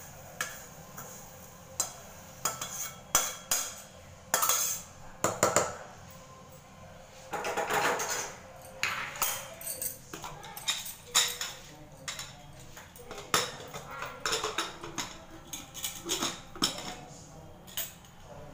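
Metal cookware being handled: a string of irregular clinks and knocks of steel pots, a lid and a ladle. About seven seconds in there is a denser rushing noise lasting about a second.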